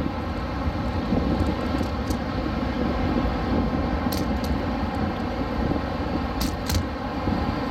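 Wind rumbling on a phone's microphone while cycling, a steady low noise, with a few short light clicks breaking through, in pairs near the middle and later on.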